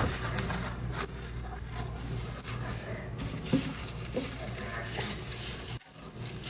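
A steady low electrical hum under background room noise, with a few short soft knocks.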